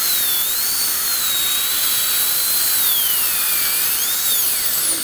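Dental handpiece drill running at a tooth: a high whine over an airy hiss. The pitch wanders, sagging lower about three seconds in and rising again before it cuts off near the end.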